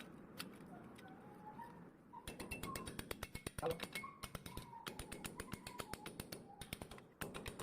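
Argon (TIG) welding arc on steel pipe ticking in quick, even clicks, about ten a second, starting about two seconds in and stopping shortly before the end.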